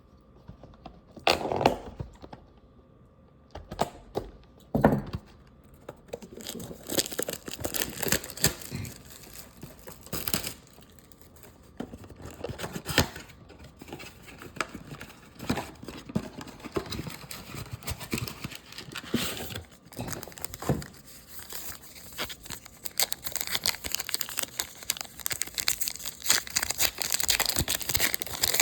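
Packaging of a 2023 Topps Archives baseball card box being torn open and its wrappers crinkled, with a couple of thumps in the first five seconds.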